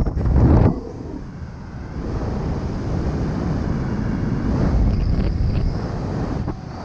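Wind buffeting the microphone during a parachute descent under an open canopy: a loud gusty rush for the first half second or so, which drops off and then settles into a steadier, lower rush.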